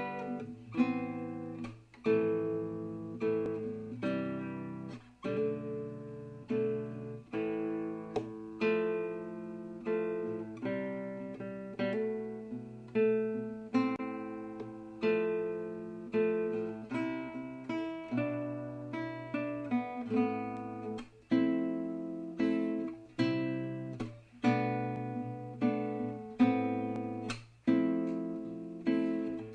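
Background music: acoustic guitar strumming and picking chords at a steady, even pace.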